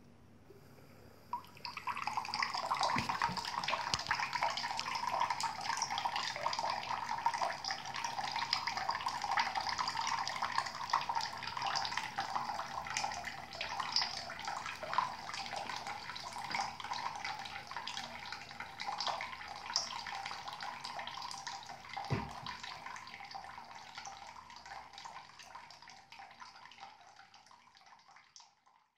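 Water trickling from a bathroom tap into the sink basin, with fine splashing ticks in the stream. It starts about a second and a half in and fades away near the end. There is a single low thump about two-thirds of the way through.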